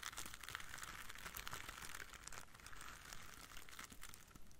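Plastic leaves of two bunches of artificial flowers pressed and rubbed together: a dense, continuous run of tiny crackling clicks.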